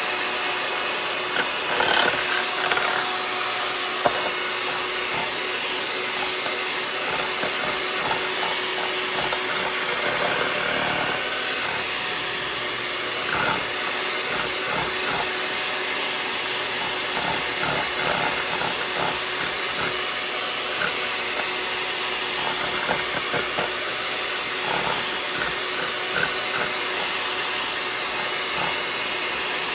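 Electric hand mixer running steadily, its beaters whipping instant coffee, sugar and hot water in a bowl for whipped coffee; the mixture is still thin and not yet whipped thick. A single knock sounds about four seconds in.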